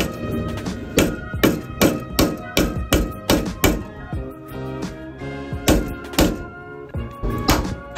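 Hammer blows on a steel shock tower reinforcement plate, knocking the tack-welded plate down to sit against the shock tower: a quick run of thunks about two to three a second, a pause of about two seconds, then a few more. Instrumental hip-hop music plays underneath.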